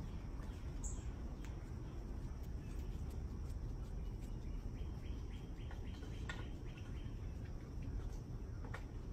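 Outdoor background: a steady low rumble with faint, scattered bird chirps and a few soft clicks.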